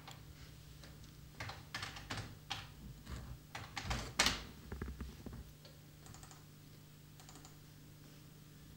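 Computer keyboard being typed on in short runs of keystrokes for a few seconds, the loudest clicks about four seconds in, then only a few faint taps. A low steady hum runs underneath.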